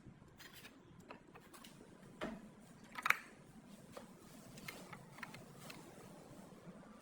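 Scattered light clicks and taps of small parts or tools being handled, with two louder knocks about two and three seconds in.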